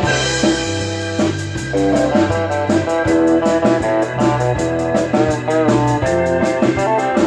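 Rock band playing: guitar chords over a bass line and a drum kit keeping a steady beat on the cymbals.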